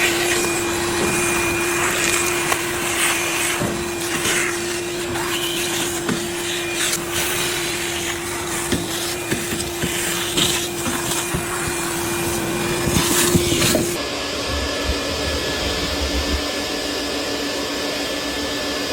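Vacuum cleaner running steadily during dryer-vent cleaning, with irregular clicks and rattles over its drone. About 14 seconds in its pitch shifts lower and the rattling largely stops.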